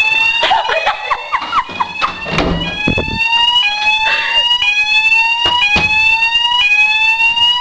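Fire alarm sounding loudly: a rising sweep tone that drops back and starts again about once a second. A few sharp knocks sound over it, and in the first couple of seconds short wavering squeals as well.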